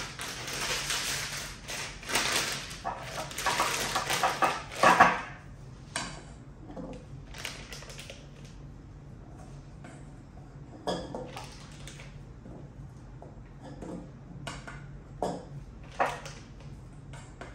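Plastic piping bag crinkling and rustling as it is opened and handled, then a spatula scraping cream from a stainless steel bowl and tapping against the bowl and bag with scattered light clicks. The rustling is loudest and densest for the first five seconds or so, after which the sounds are sparse and quieter.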